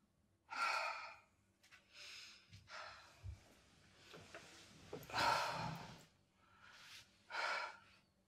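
A woman's heavy, ragged breathing after waking from a nightmare: about six loud gasps and sighs, the strongest a little past the middle and another near the end.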